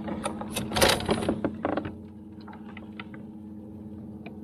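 Clattering clicks and knocks of a fishing rod being pulled from its kayak-mounted rod holder, over the steady hum of the kayak's electric trolling motor. After about two seconds the clatter stops, leaving a few light ticks over the hum.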